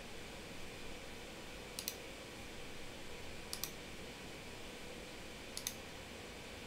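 Computer mouse clicking: three quick pairs of clicks, about a second and a half to two seconds apart, over a faint steady hiss.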